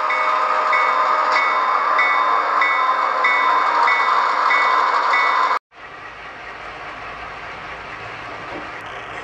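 HO-scale Southern Pacific diesel model locomotive running with its onboard sound, a steady loud drone with a short ringing tone repeating about every 0.6 seconds, like a locomotive bell. This stops abruptly about five and a half seconds in and is followed by a quieter steady running sound.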